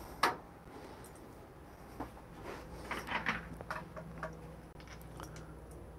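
Handling noise as a phone camera is picked up and carried. A sharp knock comes just after the start, then scattered light clicks and rustles from about two to four seconds in, over a low steady hum.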